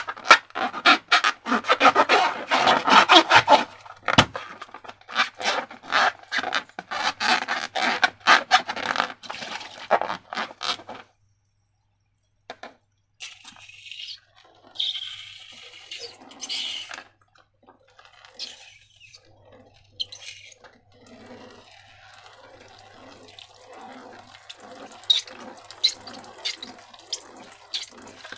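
Slime being squished and worked by hand, with dense sticky crackling and wet squelching. After a short pause about 11 seconds in, there is a brief hiss, then softer, slower squelches.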